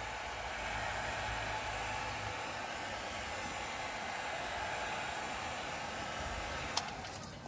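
Handheld electric heat gun blowing steadily, its fan and hot air making an even hiss as it softens a vinyl decal on car paint. It cuts off near the end with a click.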